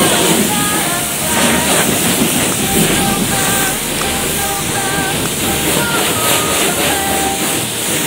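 High-pressure water jet from a coin-operated car wash lance spraying a car's bodywork: a loud, steady hiss.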